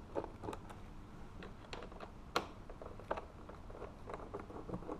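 Light clicks and ticks of a T40 Torx screwdriver turning out small bolts by hand, with one sharper click a little before the midpoint.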